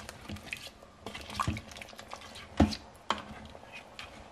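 A plastic spoon stirring beef stew in an Instant Pot's stainless steel inner pot: wet sloshing of broth and chunks of meat and vegetables, with irregular clicks and knocks of the spoon against the pot, the sharpest about two and a half seconds in.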